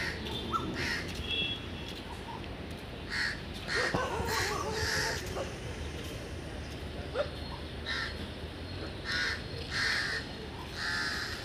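Birds giving short, repeated calls, a run of them about three to five seconds in and another run from about eight seconds in to near the end.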